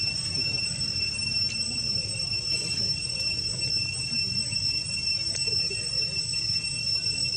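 A steady, high-pitched insect drone, two even tones held without a break, over a low rumbling background.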